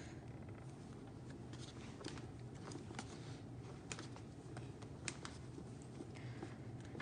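Faint, irregular light taps and clicks of fingertips and nails on an iPad's glass screen protector.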